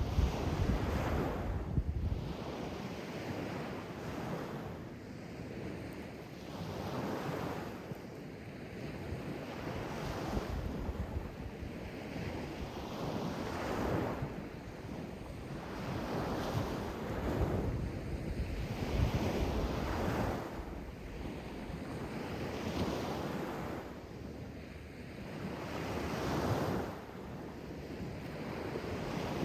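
Sea waves washing in and breaking, surging and falling back every two to three seconds, with wind buffeting the microphone.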